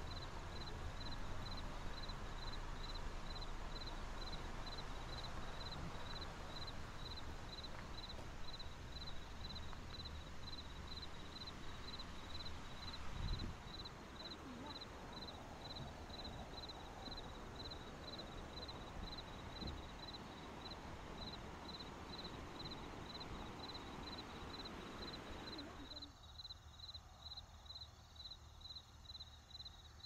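Rushing water from the waterfall's stream, a steady hiss across all pitches, with an insect chirping in high, regular pulses a little over once a second. A low thump comes about 13 seconds in. The water noise drops away abruptly near the end, leaving the chirping.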